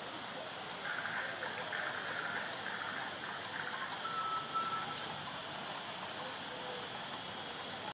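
Steady rushing hiss of a large fountain's water jets splashing, with faint distant voices.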